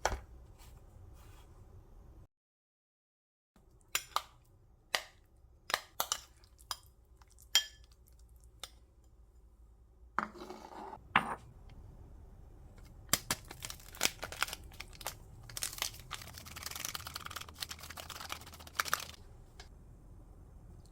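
Kitchen utensils clinking and tapping against a bowl or dish in separate sharp strikes, then a denser run of scraping and clicking from mixing.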